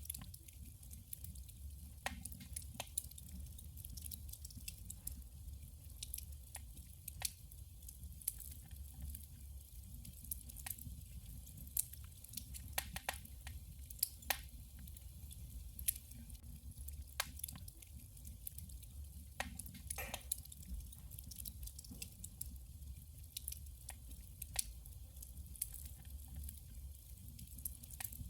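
Firewood burning in a wood stove, crackling and popping in irregular sharp snaps over a steady low rumble of the fire.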